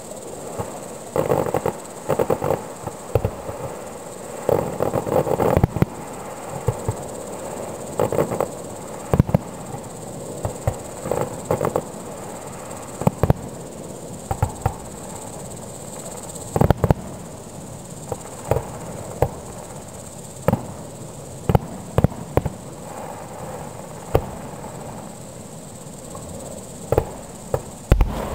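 Distant fireworks bursting at irregular intervals, single bangs and short clusters of reports, heard from about 2 km across a lake. A steady high chirring of insects runs underneath.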